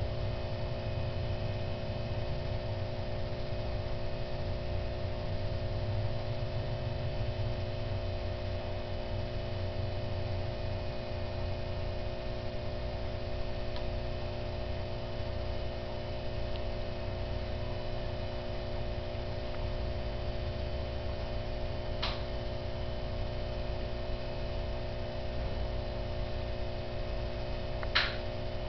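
Steady electrical hum made of several fixed tones over a low rumble, with a faint click about two-thirds of the way through and another near the end.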